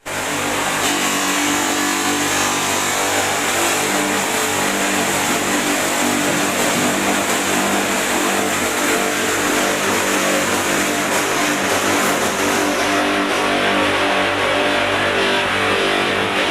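Stainless-steel sink polishing machines running steadily: a constant motor hum under a loud, even hiss.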